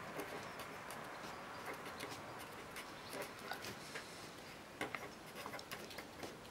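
Felt-tip marker writing on paper: a faint run of short, irregular scratching strokes as letters are written, with a few louder strokes about five seconds in.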